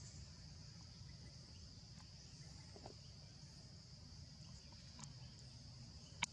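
Faint, steady insect drone: an even, high buzz over a low background rumble. A sharp click comes near the end.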